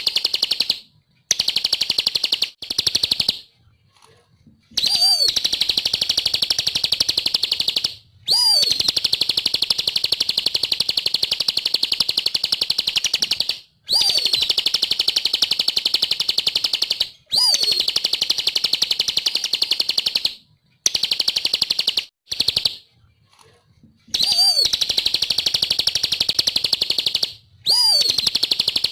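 Bar-winged prinia (ciblek) singing: long, fast, high-pitched trills lasting several seconds each, broken by short pauses. Most phrases open with a quick swooping note.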